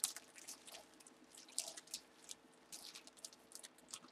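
Faint, irregular crinkles and clicks of packaging and items being handled.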